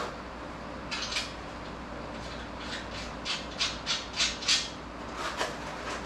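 Short scraping strokes: a pair about a second in, a quick run of about six in the middle and one more near the end, over a steady low hum.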